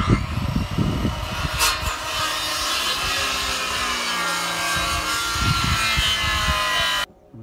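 Corded circular saw cutting through wooden floor planks: a loud, steady whine over the cutting noise that stops abruptly about seven seconds in.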